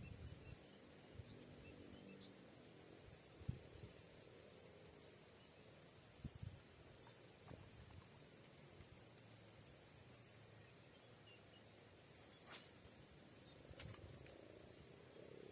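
Near silence: quiet outdoor ambience with a steady high-pitched insect drone and a few faint knocks, two of them sharp clicks near the end.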